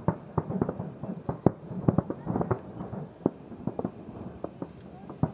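Fireworks bursting in a rapid volley, several sharp bangs a second, growing sparser in the last couple of seconds.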